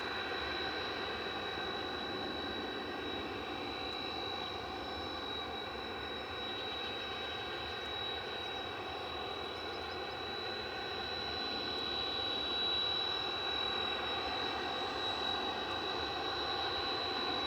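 Jet engine running steadily: a constant high whine over a broad rush, with no change in pitch.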